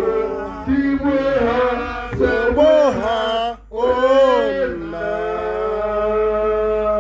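A man singing unaccompanied in long, sliding phrases, with a short break about three and a half seconds in, then a long held note near the end.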